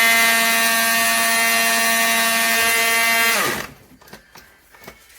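KitchenAid burr coffee grinder's electric motor running with a steady whine, then switched off about three and a half seconds in and winding down in pitch, followed by a few faint clicks. The motor spins without turning the burr, which sounds to the owner like a burned-out motor.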